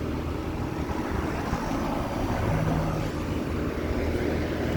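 Goodman GSZ14 heat pump outdoor unit running in cooling mode: the steady hum of its Copeland scroll compressor under the whir of the condenser fan.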